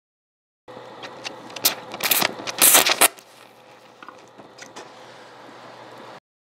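Plastic crackling and sizzling under a hydrogen-oxygen torch flame: a dense run of sharp crackles, loudest from about one to three seconds in, then fainter scattered crackles over a steady hum.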